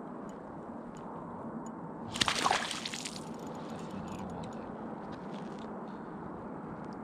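Water splashing in an ice-fishing hole for under a second, about two seconds in, as a hooked fish is reeled up on an ice rod, over a steady low hiss.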